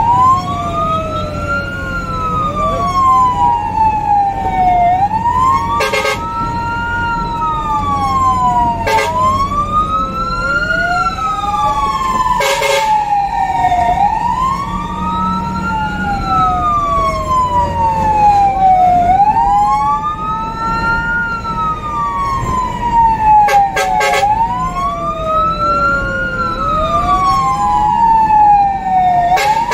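Fire engine siren wailing in slow rising and falling sweeps, with a second siren pattern overlapping it and a steady held tone, heard from inside the cab. A few short horn blasts cut through, and the truck's engine rumbles underneath.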